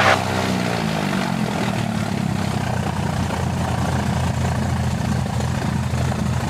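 Cessna 185's six-cylinder piston engine and propeller idling on the ground. Its pitch drops in the first second or so, then settles into a steady idle.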